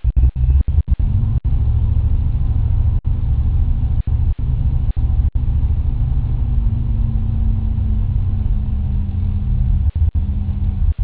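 Ford Mustang 5.0 V8 idling steadily with a low rumble during its engine-running (KOER) self-test. The engine note rises slightly about six seconds in, and the sound cuts out briefly a few times.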